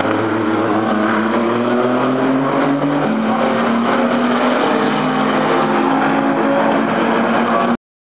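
Racing car engines running hard on the circuit, the note climbing slowly, with a step in pitch about three seconds in. The sound cuts off abruptly near the end.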